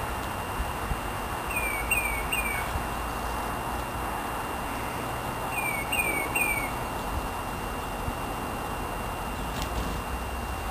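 A small songbird chirping: two quick runs of three short, falling chirps, a few seconds apart.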